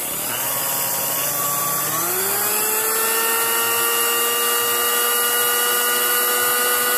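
Sunbeam Mixmaster 12 stand mixer running, its electric motor and gears turning the beater spindles with a steady whine. The pitch steps up twice in the first two seconds as the motor speeds up, then holds steady.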